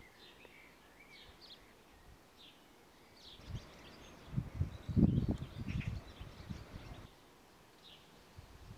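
Outdoor ambience with faint, scattered birds chirping. Low rumbling gusts of wind on the microphone swell up from about three and a half to six seconds in.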